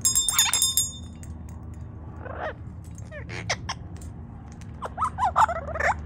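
A small metal bell on a parrot toy clanks and rings at the start, then an Amazon parrot gives short squawks and squeals with sharp clicks in between, bunching into a run of calls near the end.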